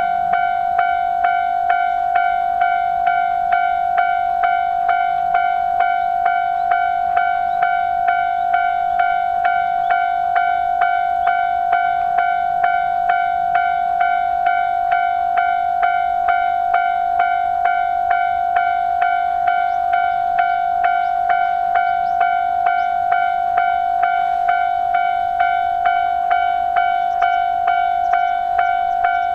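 Japanese level-crossing warning bell ringing its steady 'kan-kan' alarm: one clear ringing tone struck over and over in an even rhythm, about two strikes a second.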